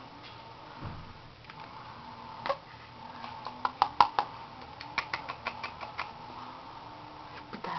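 A run of light, quick pats, several a second, from about two and a half seconds in until six seconds in: a hand patting a back to bring up a burp.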